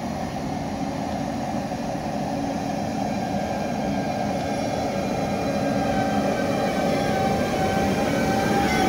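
Double-deck electric regional train pulling in along the station platform, its running noise growing steadily louder as it approaches, with faint high tones over the rumble.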